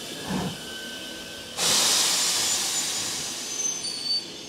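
Steam locomotive venting steam: a loud hiss starts suddenly about a second and a half in and carries on, easing slightly. It follows a brief low sound near the start.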